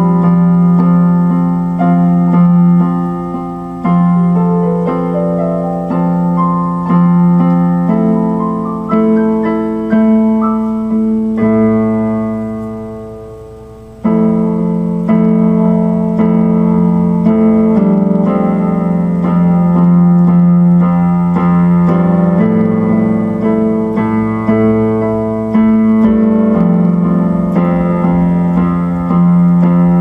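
Solo electronic keyboard played in a piano voice, chords under a melody. A rising run of notes comes a few seconds in, and later one chord is left to fade before the playing picks up again about halfway through.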